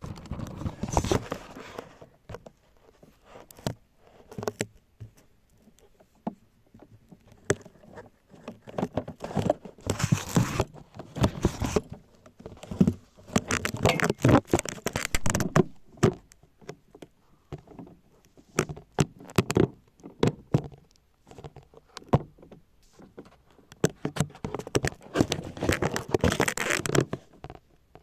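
Handling noise from a laptop heatsink being positioned over the CPU on the mainboard: irregular clusters of small clicks, taps and scraping of metal and plastic parts.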